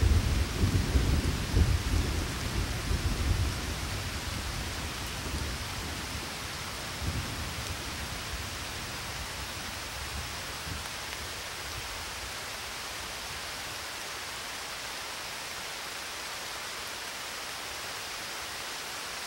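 Rolling thunder over steady rain. The rumble is heavy for the first few seconds and fades, a smaller rumble comes about seven seconds in, and after that only the even hiss of rain remains.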